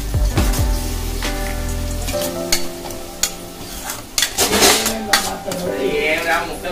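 A spatula stirring and scraping a thick frying masala of tomatoes, chillies, spices and yogurt around a nonstick kadai. The masala sizzles and the spatula clicks against the pan. This is the masala base for chicken biryani being fried until its raw smell cooks off, with background music underneath.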